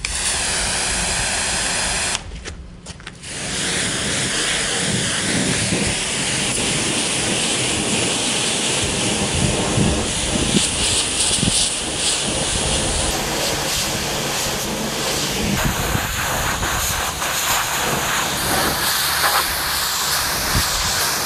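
Pressure washer spraying down a mower: a steady, loud hiss of high-pressure water that breaks off briefly a couple of seconds in, then runs on.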